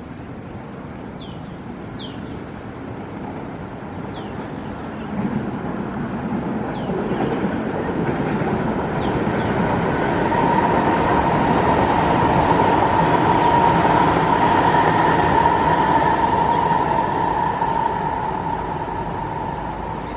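SMRT North-South Line MRT train running past on the track. The rumble and rail noise grow, are loudest about halfway with a steady whine on top, then fade as the train goes by.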